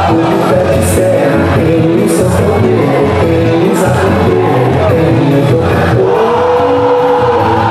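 Loud music with singing accompanying a quadrilha junina dance.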